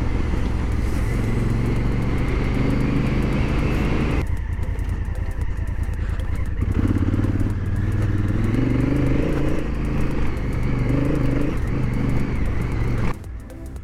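Honda Africa Twin's parallel-twin engine running as the bike is ridden on a dirt trail, its revs rising and falling with the throttle over a steady rushing hiss that eases about four seconds in. Near the end the engine sound cuts off suddenly and quieter background music takes over.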